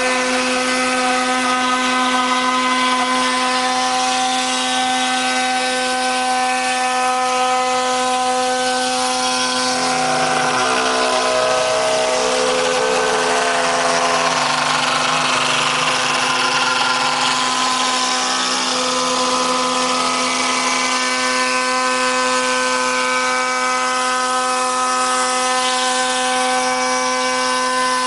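CNC wood router spindle running with a steady pitched whine over the hiss of cutting wood; for a stretch in the middle the cutting noise grows fuller and shifts in pitch as the tool works the wood.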